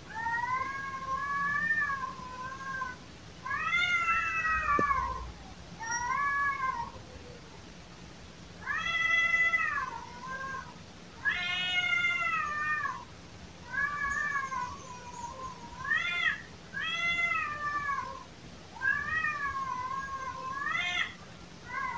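Domestic cat caterwauling: about a dozen drawn-out, wavering yowls of a second or two each, rising and falling in pitch, with short pauses between them. This is the kind of yowling said to be a cat calling to its mate.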